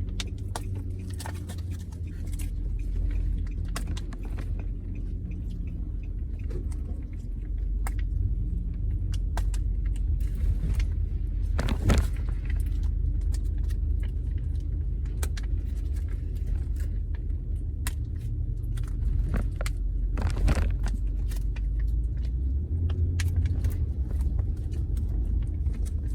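Steady low road rumble inside a moving car's cabin, with scattered crinkles and clicks as a toy's plastic packaging is torn open; a sharper crackle about 12 s in and another about 20 s in.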